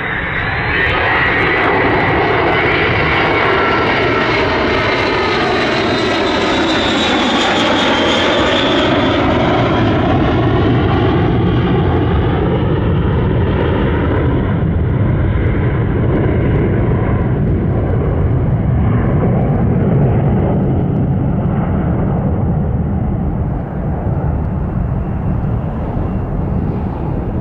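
The four TF33 turbofan engines of a WC-135 Constant Phoenix jet passing low, loud, with a swooshing, phasing sweep as it goes by. After about eight seconds the high whine fades as it draws away, leaving a low rumble.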